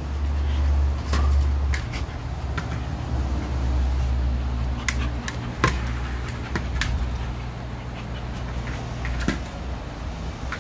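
A steady low rumble with scattered light clicks and jingles, fitting a dog's collar tags as it pushes a ball around on artificial turf.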